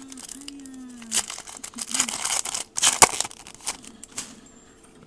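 A trading-card pack wrapper being torn open and crinkled, with a dense run of crackles and one sharp snap about three seconds in.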